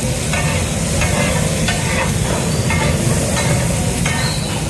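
Chopped vegetables for pulao frying and sizzling in a pan while they are stirred, with short scrapes of the stirring spoon against the pan recurring throughout.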